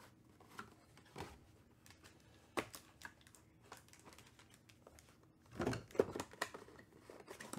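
Cardboard trading-card box being opened and its plastic-cased card handled: light taps and clicks of the lid and packaging, a sharp click about two and a half seconds in, and a cluster of knocks near the end as the hard plastic slab is set down on the table.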